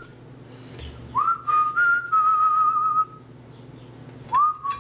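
A man whistling a tune in two phrases, one starting about a second in and another near the end. Each phrase opens with a quick upward slide, then moves between a few held notes with a slight waver.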